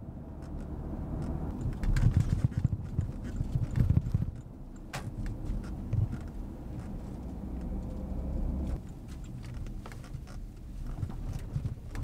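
Base Porsche Cayenne with the VR6 engine driving, heard inside the cabin: a low engine and road rumble with scattered knocks and clicks. The clatter is loudest between about two and four seconds in.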